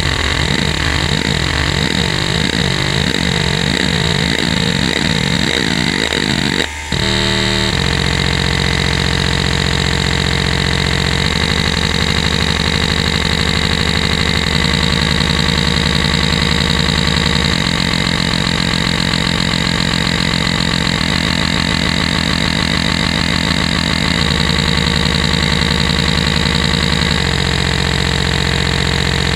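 Western Digital Caviar 31200 hard drive's head actuator seeking in hdmotion's test patterns: a fast buzzing chatter that sweeps up and down in pitch about twice a second. After a brief break about seven seconds in, it becomes a series of steady buzzing tones that shift to a new pitch every three to four seconds.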